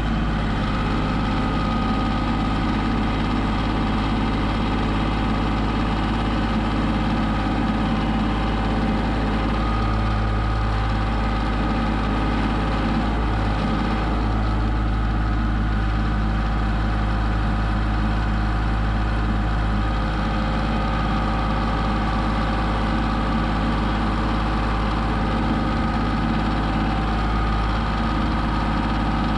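Tractor engine running steadily while it drives a hydraulic front auger boring into the soil.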